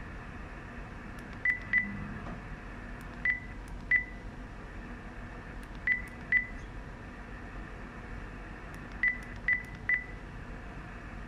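Keypad beeps from a Furuno FS-2575C MF/HF DSC radio control unit as a nine-digit MMSI is keyed in: nine short, high single-pitch beeps in uneven pairs and a triple, over a steady low hum.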